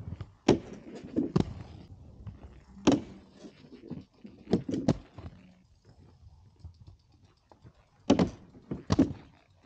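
Aggressive inline skates hitting a low ledge during grinds: sharp knocks and thuds as the skates lock onto the ledge and land back down, about seven in all, some in quick pairs, with quieter rolling and scraping between them.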